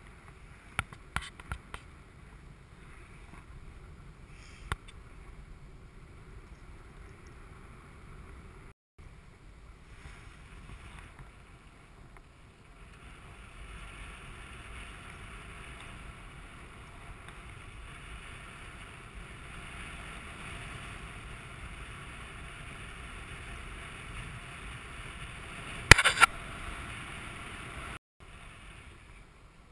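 Wind rushing over the camera microphone of a paraglider in flight, growing louder about halfway through. A few sharp clicks come near the start and a loud crackle near the end.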